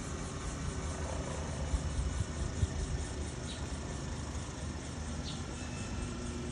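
Helicopter running close by: a steady rotor and engine noise that pulses with the beat of the blades, with a few low thumps about two seconds in.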